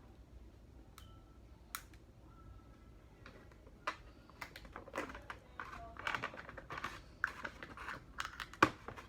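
Crab shell being cracked and picked apart by hand: a quick run of sharp clicks, snaps and crackles starting about four seconds in, with the loudest snap near the end.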